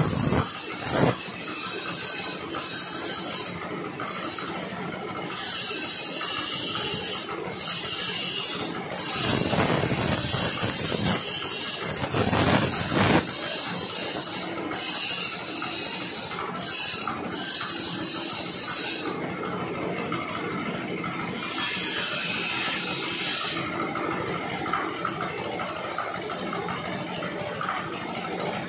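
Handheld air plasma cutter cutting carbon steel plate: a steady hiss of air and arc, with a harsher high-pitched hiss that comes and goes several times as the cut goes on. The high hiss dies away near the end.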